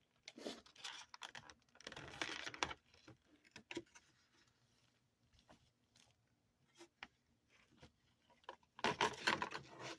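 Soft rustling and scattered light clicks from a model locomotive and its packaging being handled, with a rustle about two seconds in, a near-quiet stretch in the middle and more rustling near the end.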